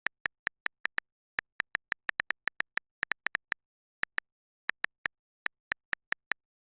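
Phone on-screen keyboard key-press clicks, one short identical tick per tap, coming in an uneven typing rhythm of about four or five a second with silence between.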